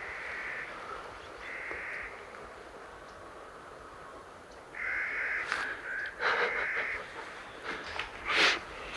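A bird giving harsh, crow-like calls, about four of them, each under a second long.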